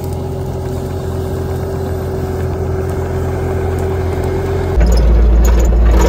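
Bobcat compact track loader's diesel engine running steadily with a constant whine over its hum. Near the end the sound switches abruptly to a louder, deeper engine rumble.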